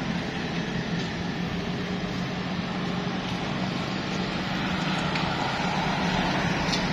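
A motor vehicle's engine running steadily with road noise, a low hum that grows a little louder over the second half.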